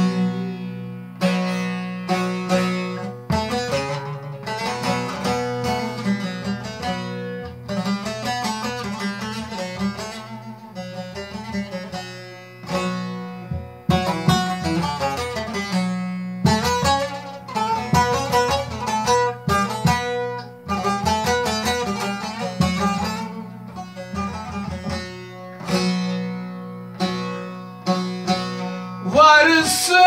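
Long-necked bağlama (saz) played solo: quick strummed and plucked melody runs over ringing drone strings, an instrumental passage of a Turkish folk song.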